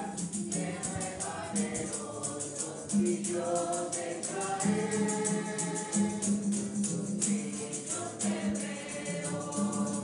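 Choir singing a hymn over a quick, steady rhythm of shaken percussion.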